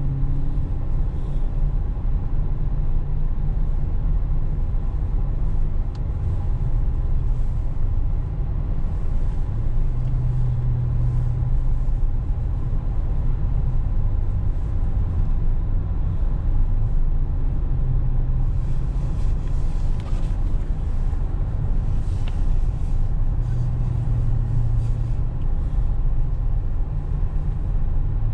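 Steady low rumble of tyres and engine inside a moving car's cabin, with a hum that swells and fades and a brief rise in hiss about two-thirds of the way through.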